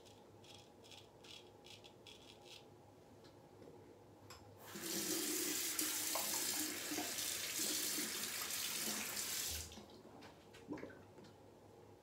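Bathroom sink tap running for about five seconds, starting about five seconds in and shut off near ten seconds. Before it, a quick run of faint short scrapes of a straight razor cutting lathered stubble; a small knock near the end.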